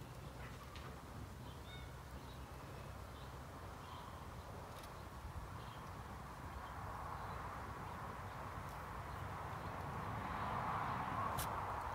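Wind on the microphone: a low rumble throughout, with a rushing gust building over the last few seconds. A few faint bird chirps in the first two seconds and a few light clicks of chicken wire being handled.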